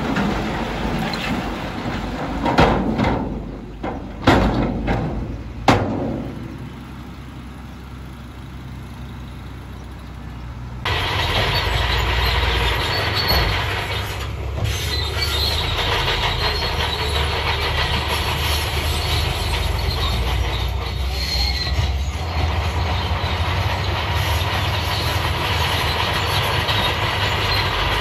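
Rock tipping out of a raised dump-truck bed, with three heavy thuds of stones falling in the first six seconds over the truck's running engine. About eleven seconds in, a crawler bulldozer's engine and tracks start up and run steadily and loudly as it pushes stone into the water.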